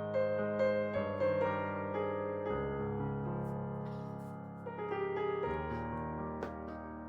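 Solo piano music playing slow, sustained notes, with a few faint clicks underneath.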